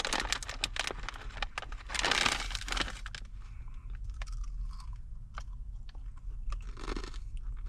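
Chips crunched and chewed close to the microphone, a run of short sharp crunches, with the chip bag rustling loudly as a hand reaches in near the start.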